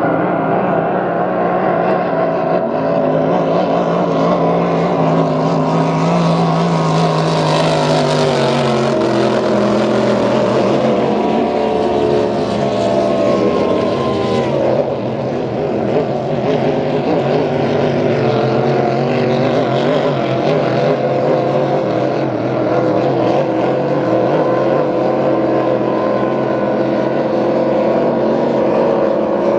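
Racing powerboats' engines running hard at full speed. About 12 to 15 seconds in, the pitch drops as a boat passes the nearest point, and the high hiss cuts off sharply.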